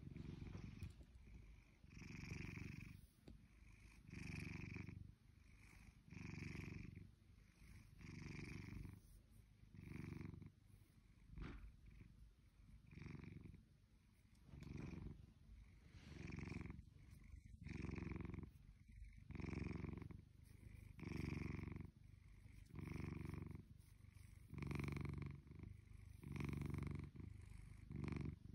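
Blue British Shorthair cat purring while being stroked, the purr swelling and fading in a steady rhythm about every second and a half to two seconds with each breath.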